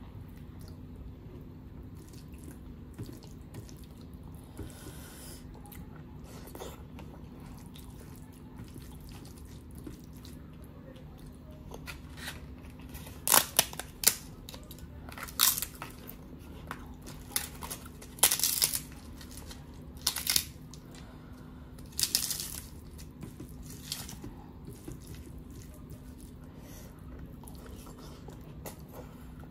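Papad (a thin crisp lentil wafer) being snapped apart by hand and crunched: a run of about six sharp, loud cracks near the middle. Before and after there are only faint wet eating sounds of hand-mixed dal and rice over a steady low hum.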